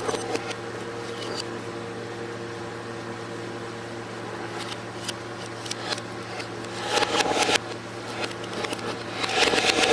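Metal spatulas scraping and tapping on the frozen ice-cream roll plate, heard in reverse, over a steady low machine hum. Mostly the hum with scattered light clicks, then bursts of scraping about seven seconds in and again near the end.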